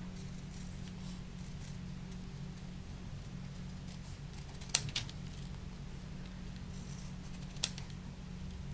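Scissors cutting small pieces of fabric backed with paper fusible web: quiet snipping, with a sharper snip about halfway through and another near the end, over a steady low hum.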